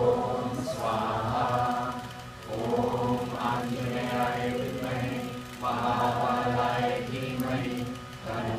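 A group of voices chanting in unison, in phrases of about three seconds each with a short pause between them, led over a microphone.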